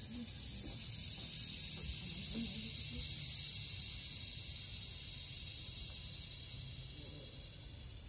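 Philippine cicada (kuliglig) calling: a high, steady buzz that swells up over the first couple of seconds and then slowly fades toward the end.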